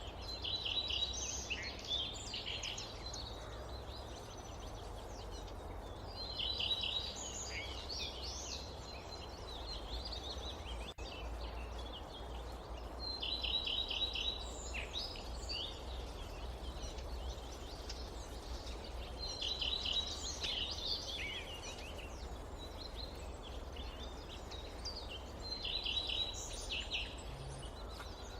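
A songbird repeating the same short song about every six seconds, each phrase a thin high whistle followed by a quick run of chirps, five times in all. It sings over a steady low outdoor background of rumble and hiss.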